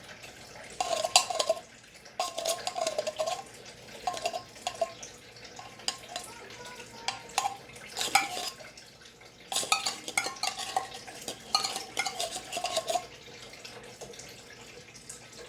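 A large metal spoon scraping and clinking against a dish as rice, noodles in broth and corned beef are stirred together, in repeated bouts with short pauses.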